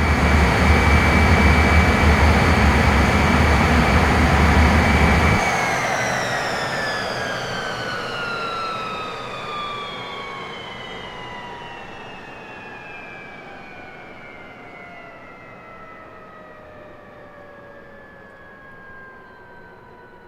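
Aircraft engine powering down. It runs steadily with a high whine over a deep rumble, then about five seconds in the rumble cuts off and the whine slides slowly down in pitch as the engine winds down, fading gradually.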